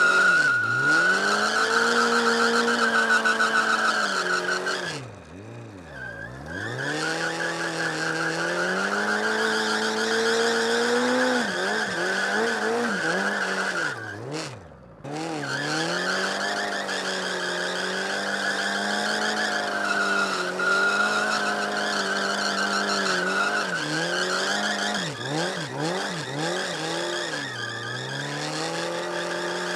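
A Suzuki GSX750F's inline-four engine is held at high revs during a burnout, its rear tyre spinning and squealing against concrete. The revs sag about five seconds in, drop right off for a moment near the middle, and blip up and down several times near the end.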